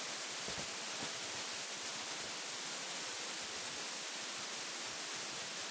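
Steady hiss of microphone background noise, with no distinct sound over it.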